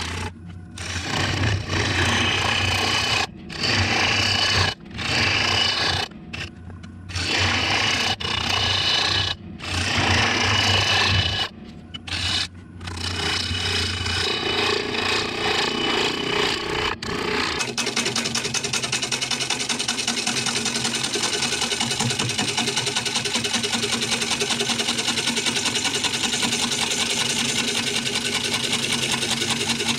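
Gouge cutting into a spinning apple wood blank on a wood lathe, a rough scraping cut over the lathe's low hum, broken off several times in the first half. From a little past halfway it settles into a steady even cut with a fast regular pulse.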